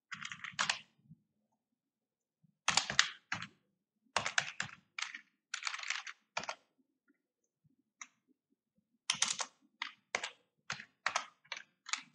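Typing on a computer keyboard: quick runs of keystrokes in several bursts, with short silent pauses between them, the longest a couple of seconds in the middle.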